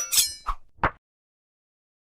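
Fight sound effects: a metallic clang ringing out, then two quick short hits, then the sound cuts to silence after about a second.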